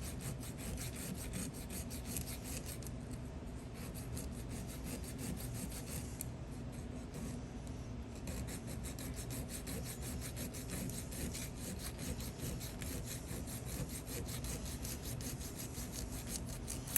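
Hand file stroking rapidly and evenly back and forth on a cast malleable-iron key, taking the ridge left from casting off its top.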